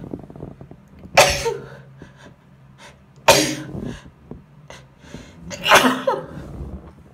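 A woman sneezing three times in a row, about two seconds apart, each sneeze sudden and loud and then trailing off.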